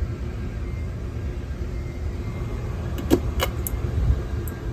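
1998 Hampton Bay Pearl ceiling fan running steadily on medium speed: a low rumble of motor and moving air, with a few light clicks about three seconds in.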